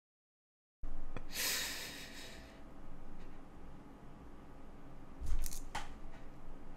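Dead silence for under a second, then a man breathing out heavily close to the microphone. About five seconds in comes a dull thump with a brief rustle, over faint room tone.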